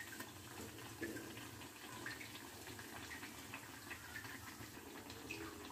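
Besan-battered bread slices deep-frying in hot oil in a small kadhai: a faint, steady sizzle with small pops.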